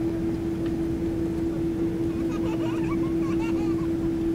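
Cabin noise of a Boeing 777-200 rolling along the runway: a steady engine drone with a constant hum and low rumble, not spooling up.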